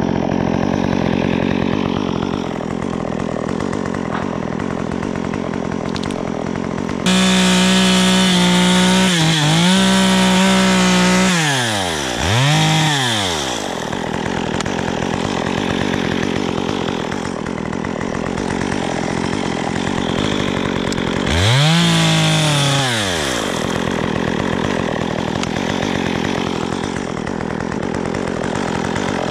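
Two-stroke chainsaw running in a palm-pruning cut. It is revved to full throttle about a quarter of the way in and held, then let off and blipped up and down a couple of times. It goes to full throttle again about three quarters in, dropping back to a lower, steady run in between.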